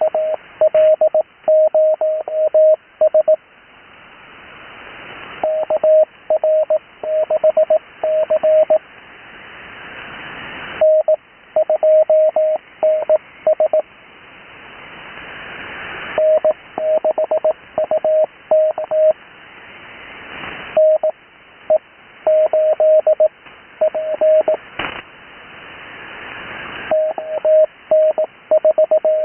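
Morse code (CW) heard over a radio: a single steady tone keyed in rapid dots and dashes, sending amateur callsigns at high speed in quick groups about two seconds apart. Band hiss swells in the gaps between groups.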